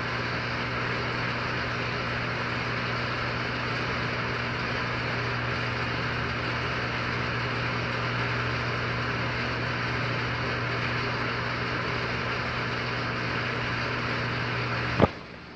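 Steady low mechanical or electrical hum with an even hiss over it, unchanging throughout, cut off by a sharp click near the end.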